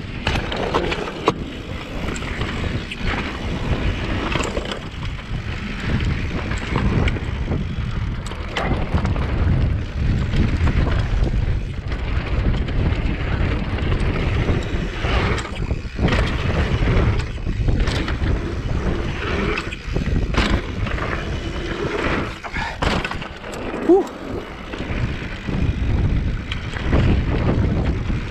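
Mountain bike rolling fast down a dirt singletrack: tyres running over packed dirt and rocks with a steady rumble, and the bike rattling and knocking sharply over bumps every few seconds, with wind buffeting the microphone.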